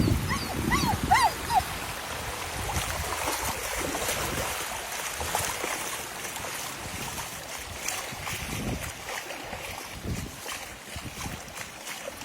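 Steady rush of floodwater, with a few short rising-and-falling whimpering calls near the start.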